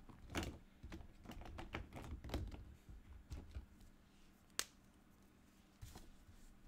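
Faint, irregular clicking and tapping, quick clicks through the first few seconds, then a single sharper click about four and a half seconds in and a couple more near the end.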